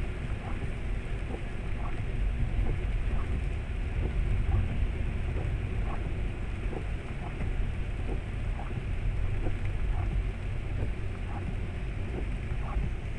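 Steady low rumble of a car driving on a wet road at night, with the hiss of rain and tyre spray, as picked up inside the car by a dashcam's built-in microphone. Faint light ticks come roughly once a second.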